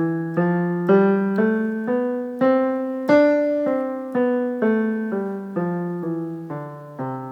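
Piano playing the 'nine' vocal-exercise scale: a major scale climbing step by step to the ninth degree and back down, one note about every half second. The top note comes about three seconds in, and the descent reaches the bottom note near the end.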